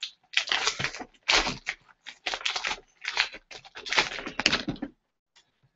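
Foil wrapper of a Topps jumbo pack of trading cards crinkling and tearing as it is pulled open, a string of rustling crackles that stops about five seconds in.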